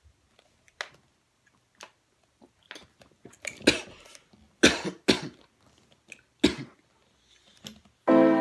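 A person coughing: a run of short separate coughs spread over several seconds, some coming in quick pairs, the loudest in the middle. Music starts up again right at the end.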